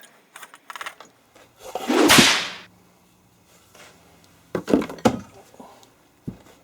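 Rinse water dumped out of a PVC soaking tube, a brief rush and splash about two seconds in, followed by a few sharp knocks and clatter of the tube and the steel breaker bar being handled.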